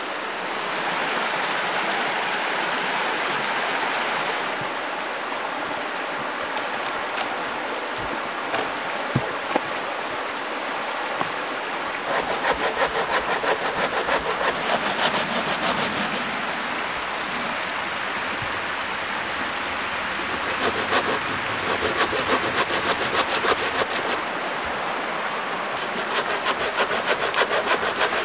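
Shallow river rushing steadily over stones, joined partway through by a hand saw cutting a mossy dead log in quick back-and-forth strokes, in three spells of a few seconds each.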